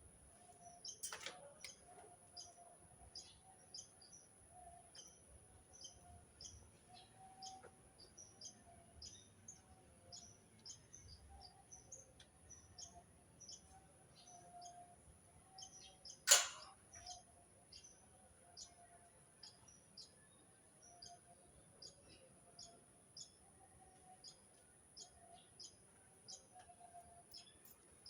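Small birds chirping: short, high chirps repeated several times a second. There is a sharp click about a second in and a louder one about sixteen seconds in.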